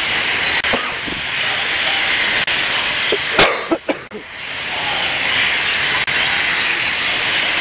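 Steady hiss of heavy rain and running water, broken by a single sharp knock about three and a half seconds in and a brief drop in the sound just after.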